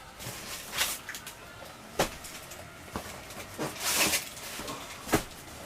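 Cardboard shipping boxes being handled: scattered knocks and bumps about once a second, with a longer scraping rustle about four seconds in.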